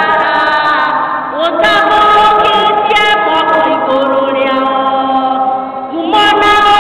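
Women's voices singing a hymn through microphones, with a group singing along in long held notes.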